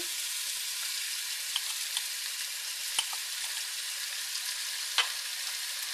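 Cubed chicken breast frying in hot canola oil in a soup pot: a steady sizzle, with a few sharp clicks, the loudest about three and five seconds in.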